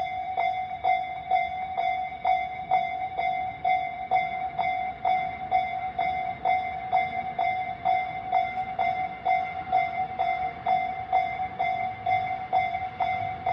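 Japanese railway level-crossing warning bell, its newly renewed alarm ringing a steady, evenly repeated ding about twice a second.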